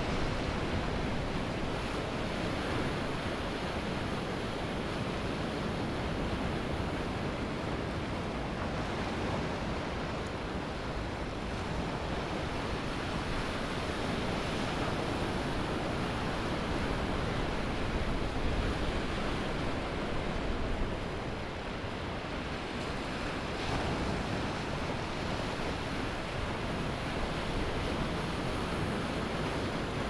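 Ocean waves breaking and washing up a sandy beach: a continuous rush of surf that swells and eases, a little louder about two-thirds through.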